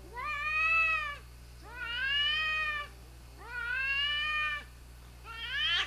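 Cats yowling at each other in a standoff, the warning yowls that come before a fight. There are four long, drawn-out yowls of about a second each, each rising then falling in pitch, with a lower yowl running beneath them.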